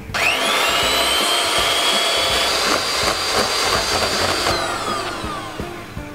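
Electric hand mixer beating egg yolks and sugar in a stainless steel bowl. Its motor whine rises quickly as it switches on and runs steadily, then drops in pitch and fades over the last second or so as it slows.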